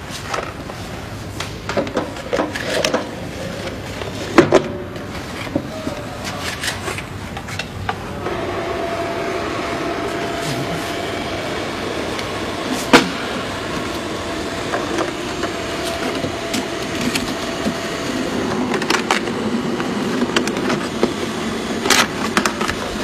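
Plastic knocks, clicks and rattles as a plastic exhaust fan housing and its flexible duct are handled and fitted to a laser engraver, with one sharp knock about halfway through. A steady hum sets in about a third of the way in.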